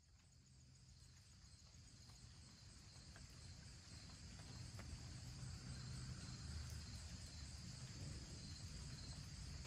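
Near silence, then faint outdoor ambience fading in over a few seconds, with a steady high chorus of insects.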